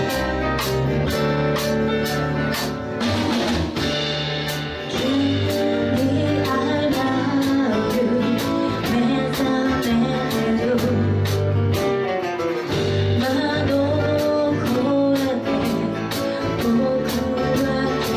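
Live band music: a woman sings into a microphone over acoustic guitar, accordion, upright bass and a drum kit with a steady cymbal beat. The singing comes in about three seconds in, after a short instrumental stretch.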